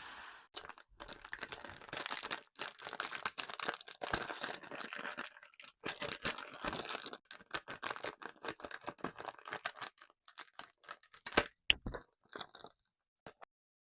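Close-miked crunching and crackling of hard sugar candy: dense, crisp crackling for most of the first half, thinning to scattered cracks, with a couple of loud sharp snaps near the end before it stops.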